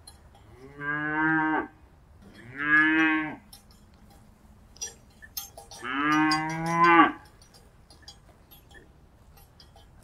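Cow mooing three times, each moo about a second long and dropping in pitch as it ends, the last one the longest.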